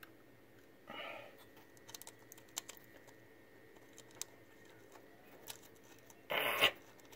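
Light clicks and scratches of small metal parts being handled as an electric choke cap is worked onto an Edelbrock carburetor's choke housing, with a short, louder scraping rustle near the end.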